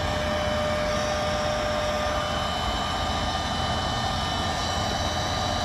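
Shark2S rechargeable electric inflation pump running steadily with a whining hum, partly inflating an inflatable kayak.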